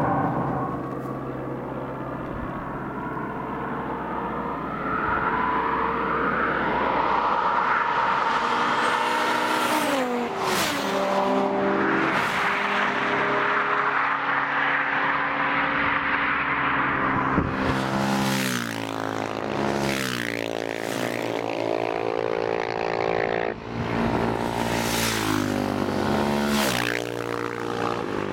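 Tuned cars' and supermoto motorcycles' engines revving hard and passing by at speed, several pass-bys in a row. The engine pitch climbs through the gears and drops as each vehicle goes by.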